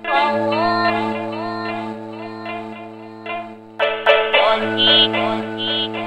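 Electronic music: a steady synthesizer drone under a sampled 1929 recording of a Japanese woman singing, her voice sliding between notes, with plucked string notes. The sampled voice and strings come in loud at the start and again about four seconds in.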